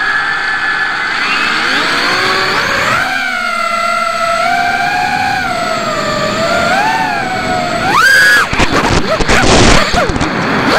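ImmersionRC Vortex 180 racing quadcopter's brushless motors and propellers whining, heard from the craft's onboard camera. The whine starts suddenly on throttle-up and rises and falls in pitch as the throttle changes. About eight seconds in it climbs sharply, then gives way to a loud, rough rushing noise for a couple of seconds before the whine returns.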